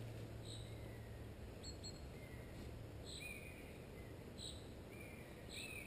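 Faint bird calls: short high chirps repeating every second or so, with a few longer whistled notes between them.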